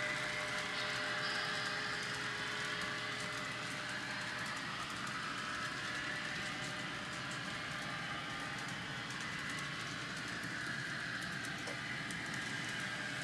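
Several model trains running on a layout: a steady whirr of wheels on the rails and motors, with light clicks.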